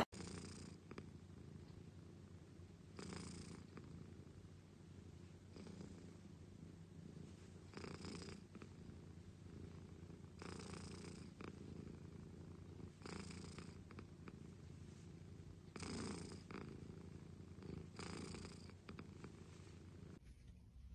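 Domestic cat purring close to the microphone: a soft, steady low rumble that swells with each breath, about every two and a half seconds.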